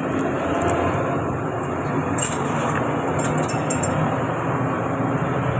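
Steady road-traffic noise, with a few light clinks of broken side-mirror glass being handled about two seconds in and again a second later.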